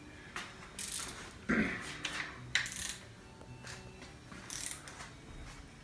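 Small metal engine parts being handled and set down on metal, about half a dozen short, sharp clinks at irregular intervals.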